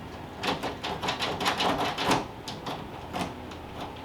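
A lever-style door handle and its latch clicking, a run of irregular sharp clicks as the handle is worked. It is the one newly fitted handle that isn't working right.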